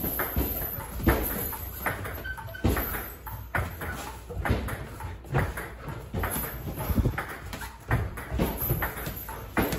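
Irregular dull thuds of boxing gloves landing on each other and on a body protector, mixed with feet stepping and shuffling on the ring canvas during sparring.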